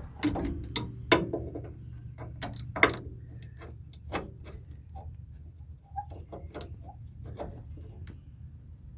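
Irregular sharp clicks and taps of hand tools on metal, as bolts are worked loose on a brake assembly, over a steady low hum.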